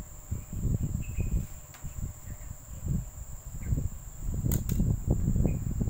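Close handling noise of hands working a needle and thick acrylic yarn through crocheted fabric: irregular low rustling and rubbing as the yarn is pulled through. A thin high whine runs steadily underneath, and two sharp clicks come about four and a half seconds in.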